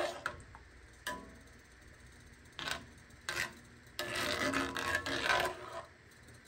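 Kitchen prep sounds: several sharp knocks of utensils, then a longer stretch of scraping, the loudest part, from about four to six seconds in.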